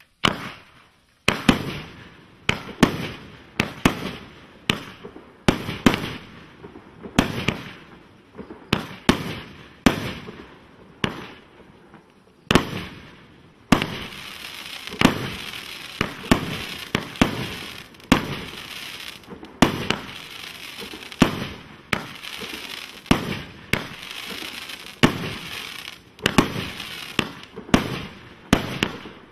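A 64-shot firework cake firing in rapid succession: sharp reports about one to two a second. From about halfway through, a steady crackle fills the gaps between the shots.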